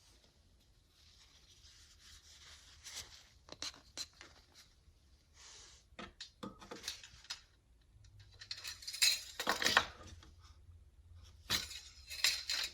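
Engine oil dipstick being pulled from its tube and pushed back in: light scrapes, small clicks and rustling, with the loudest rasping about nine to ten seconds in and again near the end.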